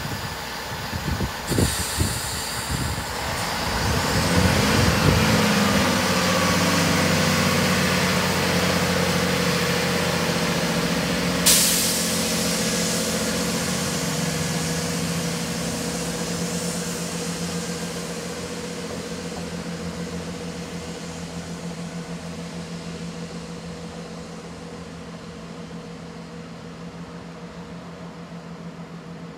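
Class 166 diesel multiple unit pulling away: a hiss of air and a few low thumps in the first seconds, then its diesel engines rev with a rising note about four seconds in. They settle into a steady note that slowly fades as the train draws off, with one sharp click about eleven seconds in.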